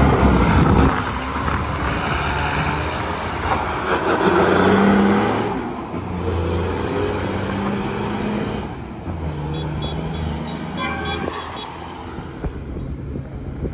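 A loaded Mack dump truck's diesel engine pulls away and climbs a steep grade, labouring under load. The engine note dips twice as it shifts up, and the sound fades as the truck moves away. A vehicle horn toots briefly near the end.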